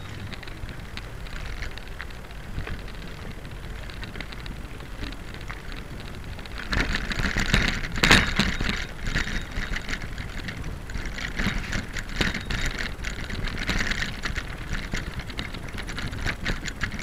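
Bicycle rolling along with a steady low rumble, then from about seven seconds in a rapid rattling and clicking as it rides over brick paving, with one sharp knock about a second later.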